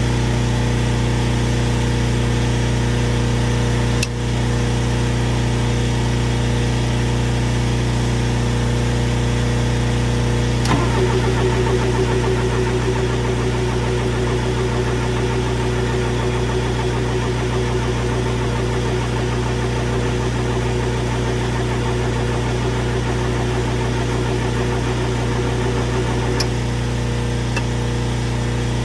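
An engine running steadily at idle. A click comes about four seconds in and another about eleven seconds in, after which a higher steady whine joins the engine until near the end.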